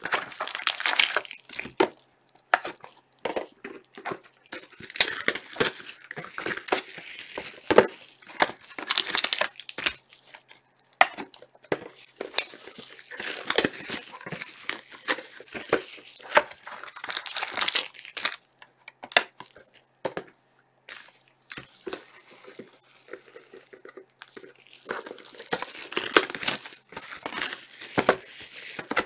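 Plastic shrink-wrap being torn off and crumpled from sealed trading-card boxes, with the cardboard boxes and foil card packs being handled. It is an irregular run of crinkling and tearing with brief pauses.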